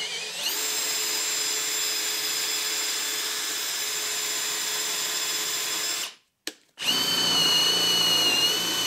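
Hilti 22V brushless hammer drill's motor running with a steady whine while a 1 1/8-inch spade bit is drawn slowly back out of a hole in wood. It spins up just after the start, stops about six seconds in, then starts again slightly louder.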